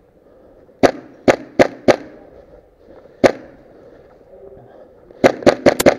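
Airsoft rifle firing single sharp shots: four spaced shots about a second in, one more about three seconds in, then a quick string of five near the end.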